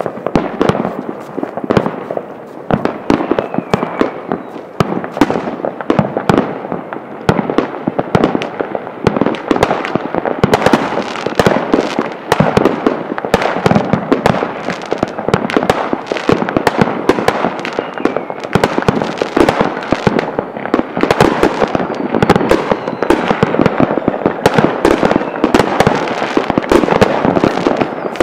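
New Year's Eve fireworks going off all around: a dense, continuous volley of bangs and cracks from many rockets and firecrackers, with no pause, growing busier about ten seconds in.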